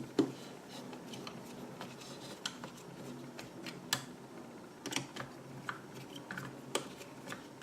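Irregular light clicks and taps from 3D-printed plastic gearbox housing parts being handled and screwed together.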